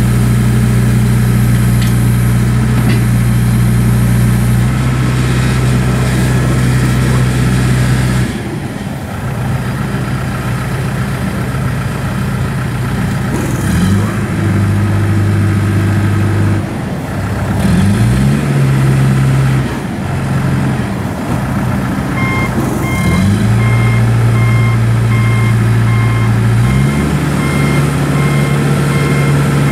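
2007 John Deere 310J backhoe loader's diesel engine running, its pitch rising and falling several times as the engine speed changes. About two-thirds of the way through, the reversing alarm starts beeping, about twice a second.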